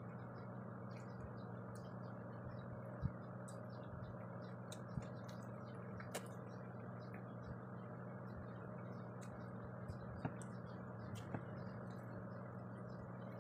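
Quiet eating with the hands: a few scattered soft clicks and smacks as rice and fish are picked up and chewed, over a steady low electrical hum.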